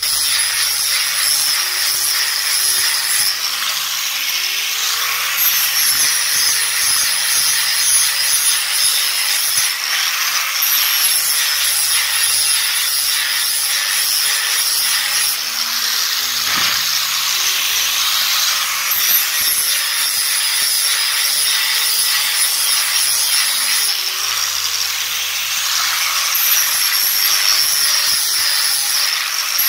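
Angle grinder with a flap disc sanding and rounding over the corners of a wooden stick: a steady high motor whine over the rasp of abrasive on wood, the whine dipping and rising every few seconds.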